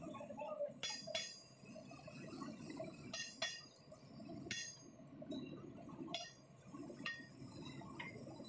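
A large metal-turning lathe running with a steady low rumble, over which come about eight sharp, irregularly spaced metallic clinks, some in quick pairs, each ringing briefly.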